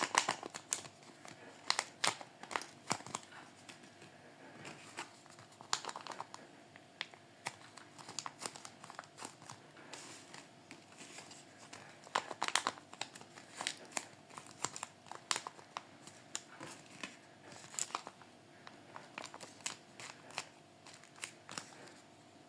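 Paper blind-bag packaging being crinkled and handled, with irregular sharp crackles and some tearing.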